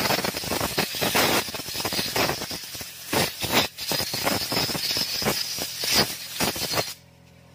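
Compressed-air blow gun hissing in a series of short blasts as it blows dirt off a motorcycle's rear drum-brake backing plate; the air cuts off sharply near the end.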